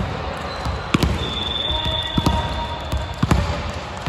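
A volleyball thudding on a hardwood gym floor: a few separate bounces, roughly a second apart, some in quick pairs.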